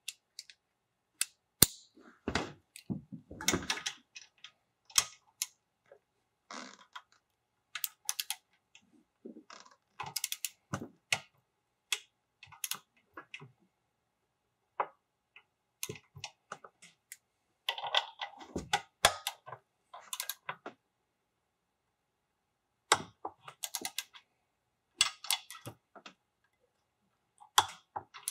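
Irregular bursts of metal clicking and clinking from a 3/8-inch-drive click-type torque wrench and socket as bolts are run down and torqued to 25 ft-lb, with quiet gaps between.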